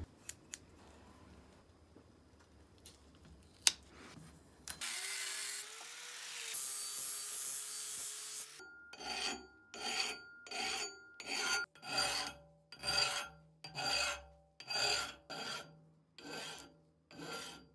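An angle grinder with a flap disc grinds the steel edge of a cleaver blade for a few seconds, after a few faint clicks. Then a hand file rasps over the steel in steady strokes, about two a second.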